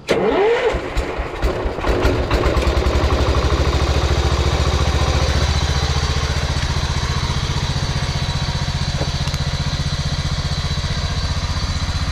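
1971 John Deere 140 H1 riding mower's single-cylinder Kohler engine starting: it catches right away and runs unevenly for about two seconds. It then settles into a steady run with an even, rapid beat.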